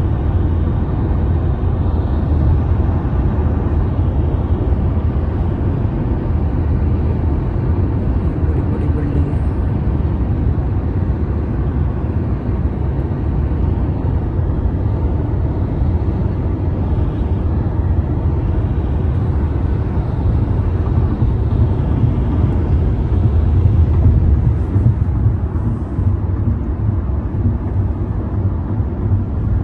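Steady low rumble of road and engine noise, heard from inside the cabin of a moving car.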